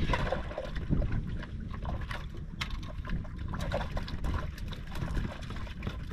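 Wind rumbling on the microphone, with scattered light clicks and taps from handling the catch and rig at a cooler.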